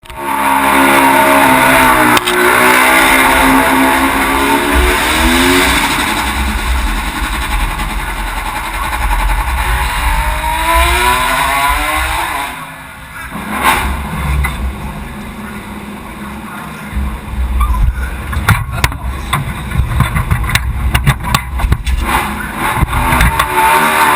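Suzuki GSX-R1000 World Superbike's inline-four engine at racing pace, revving hard with its pitch sweeping up through the gears. Around halfway it drops away briefly as the throttle is shut, then picks up again with a choppy, crackling stretch near the end.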